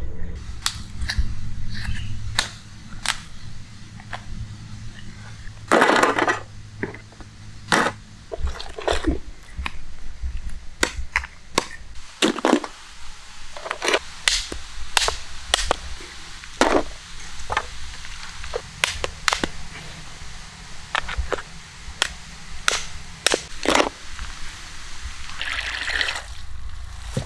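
Large mud crab shells being cracked and pulled apart by hand on a wooden board: a long run of sharp, separate cracks and snaps. Near the end, water from a hose splashes into a metal pan.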